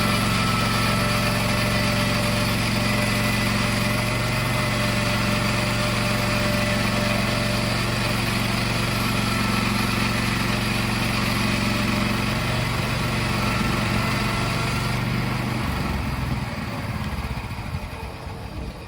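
Engine of a portable sawmill running steadily at speed, then throttling down and falling off about three-quarters of the way through.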